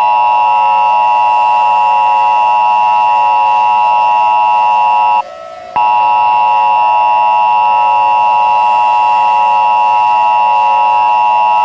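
Emergency Alert System attention signal: a loud, steady dual tone. It stops for about half a second about five seconds in, then sounds again until near the end, over faint background music.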